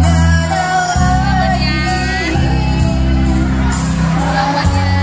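A song playing, with a sung melody over steady, sustained bass notes.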